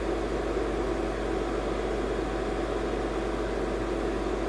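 Steady background hum and hiss with no distinct events: constant room noise from running equipment.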